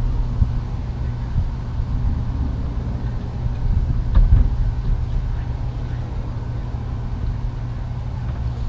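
An engine running out of sight, a steady low rumble with a brief sharper knock about four seconds in.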